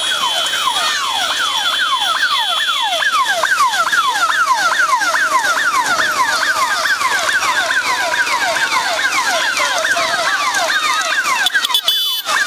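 Several electronic sirens sounding together, each a quick falling whoop repeated over and over, several a second, overlapping into a continuous wail.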